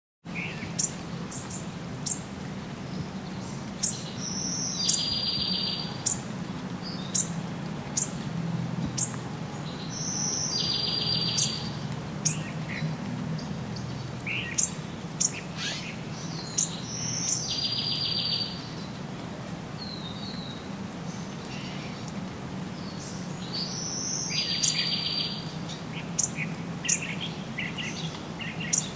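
Birds calling: many short, sharp high chirps, and about every six seconds a high note followed by a buzzy call lasting about a second, over a low steady hum.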